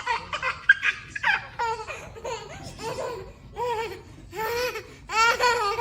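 A high-pitched voice making a string of short cries with arching pitch, about one a second.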